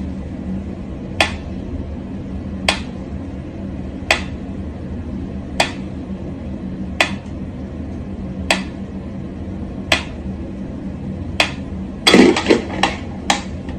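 Mechanical pendulum metronome ticking slowly, one sharp tick about every second and a half. About twelve seconds in, a cat's paw strikes the swinging pendulum and the metronome gives a quick jumble of louder clicks and knocks.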